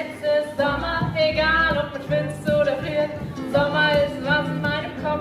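Live song: a voice singing over a bass guitar and ukulele, with sliding, yodel-like vocal lines.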